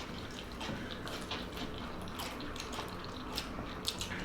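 Close-miked chewing of a cheeseburger wrap: soft wet mouth clicks and smacks, several each second.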